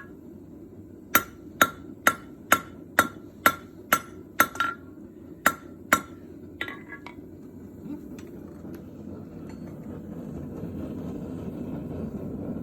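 Hand hammer striking hot metal on an anvil, about a dozen ringing blows at roughly two a second, then a few lighter taps. The hammering stops about six seconds in, leaving a low steady rushing noise that slowly grows louder.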